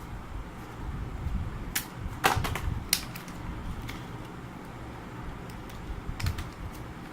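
Handling noise: a handful of sharp clicks and knocks from handling a clip-on phone fish-eye lens and its packaging, the loudest a little over two seconds in, over a low rumble of handling.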